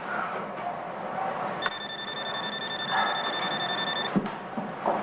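Telephone ringing with a steady high electronic tone: one ring of about two and a half seconds, starting about a second and a half in. A couple of short knocks follow near the end.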